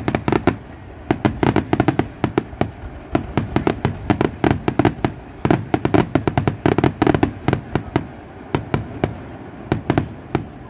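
Aerial fireworks display going off in a fast barrage of sharp bangs, many a second, thinning to scattered reports near the end.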